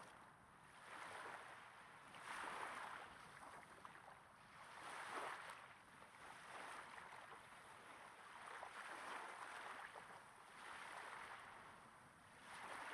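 Small waves breaking gently on a sandy beach, recorded close up: faint soft rushing swells that come and go every couple of seconds.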